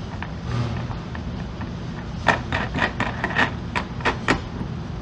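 A quick run of about nine sharp clicks over two seconds, starting about halfway in, as the knob of a glue-pull crossbar dent puller is turned to draw up on the glued tab. A steady low hum runs underneath.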